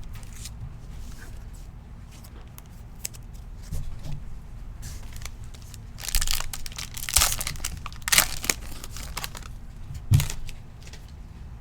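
Plastic foil wrapper of a trading-card pack being torn open and crinkled, in several short bursts, loudest between about six and eight and a half seconds in.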